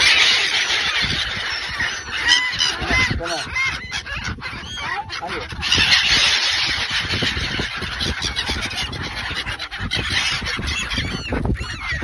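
A large flock of black-headed gulls calling together: a dense din of short, overlapping cries, loudest at the start and again about six seconds in.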